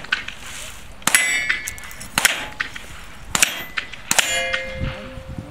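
Four rifle shots about a second apart. The steel plate targets clang and ring after the first and last hits.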